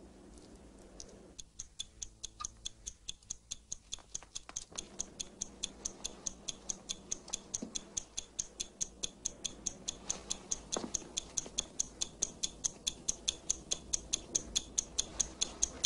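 A clock ticking on a film soundtrack as a tension-building effect: a quick, even tick of about three a second that starts a little over a second in and grows slowly louder.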